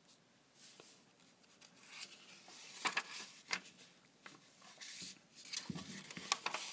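Paper pages of a small instruction booklet being turned and pressed flat by hand: a run of crisp rustles and crinkles, loudest about three seconds in and again near the end.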